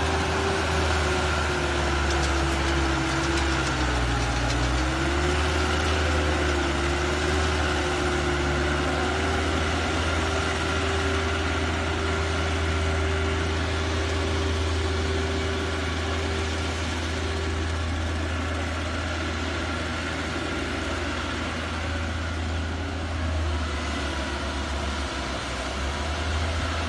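100 hp crawler tractor's diesel engine running steadily as it drives across a wet field, its pitch dipping briefly and recovering about four seconds in.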